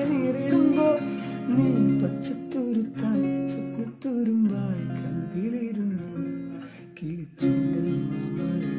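Acoustic guitar strummed and picked, with a man's voice humming a wavering wordless melody over it; after a brief lull near the end, a fresh strum comes in.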